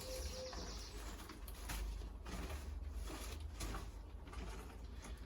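A bird cooing briefly at the start, over a steady low rumble, with several sharp clicks and rustling from tomato plants being pruned by hand.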